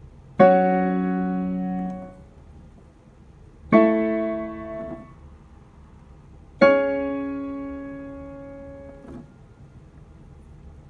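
Casio digital piano playing three chords, each struck with both hands, held for a couple of seconds and then released, about three seconds apart.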